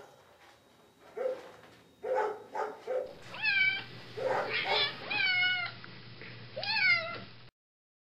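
Cat meowing: three drawn-out meows that rise and fall in pitch, with shorter sounds between them, in the second half. The sound cuts off suddenly near the end.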